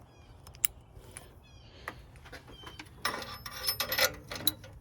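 A few scattered light clicks and taps of hand tools. Then, from about three seconds in, the rapid metallic clicking of a ratchet wrench turning an oxygen sensor socket.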